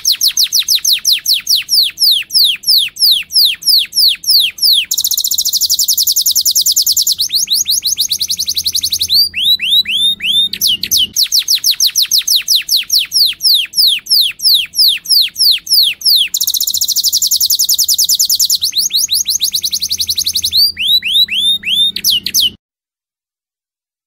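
Recorded bird song played as a masteran track for tutoring a caged songbird: quick runs of high downward-slurred whistles, several a second, broken by a steady buzzing trill. The same sequence repeats about every eleven seconds and cuts off suddenly near the end.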